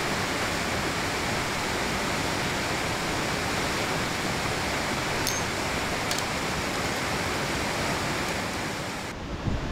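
Steady rush of flowing stream water, with a couple of faint ticks midway. Just before the end the rushing drops away and a low, gusty wind rumble on the microphone takes over.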